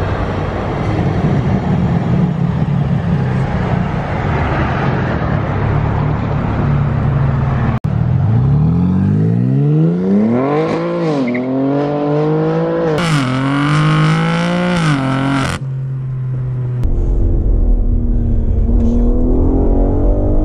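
BMW G80 M3's S58 twin-turbo straight-six, fitted with SSR race downpipes, rumbling at low revs. After a cut about eight seconds in, it accelerates hard with revs climbing and dropping back at each upshift. Near the end it is heard from inside the cabin as a steady low drone while cruising.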